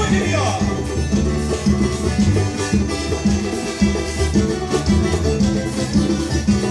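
Latin-style instrumental music with a steady beat of bass and drums, with no singing.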